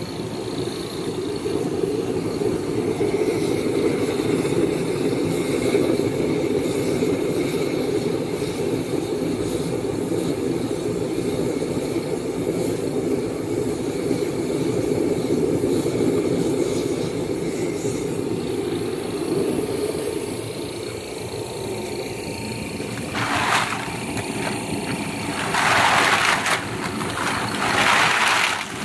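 Homemade waste-oil-fired foundry furnace burning with a steady low rush, which eases off after about twenty seconds. Near the end come three bursts of plastic rustling from a black plastic bag being handled.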